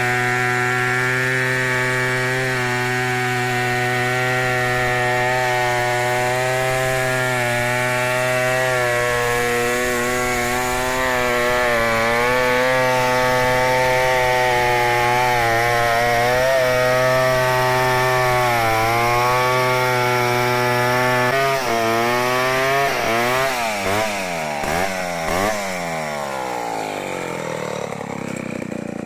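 Stihl 070 two-stroke chainsaw running at full throttle under load, ripping lengthwise down a log in a freehand milling cut, its pitch holding steady with small dips. About 22 seconds in the engine note drops, then rises and falls several times as the throttle is blipped, and settles lower near the end.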